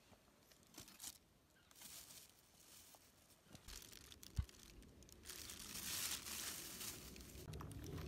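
Faint rustling and handling noise, with a single soft low thump about four and a half seconds in and a louder rush of rustling from about five to seven seconds.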